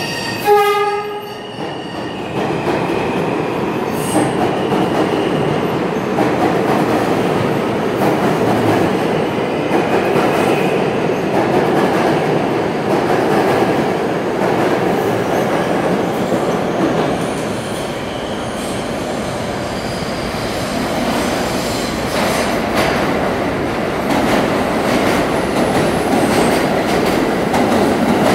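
R160 subway train pulling out of the station, with a short electric motor whine in about the first second. The cars then rumble and clatter steadily past along the rails, with faint wheel squeal now and then.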